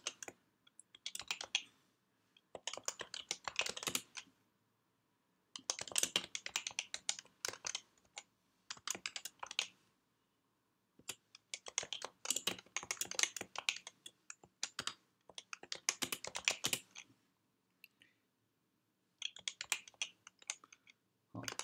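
Typing on a computer keyboard: quick runs of keystrokes lasting a second or two each, broken by short pauses.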